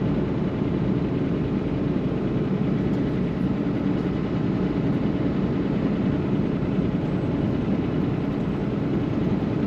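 Semi truck driving on an icy highway with tire chains on: steady engine and road noise.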